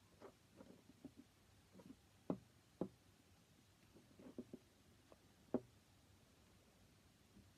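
Near silence with faint clicks and light taps from hands twisting two red wires together, a few sharper ticks among them.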